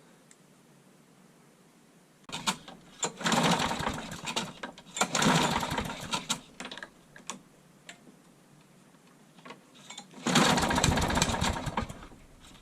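Small lawnmower petrol engine, a Masport, sounding in two short loud stretches of rapid clatter, the first a few seconds long and the second about two seconds: the mower being pull-started and run briefly after its flywheel key and pull rope were replaced.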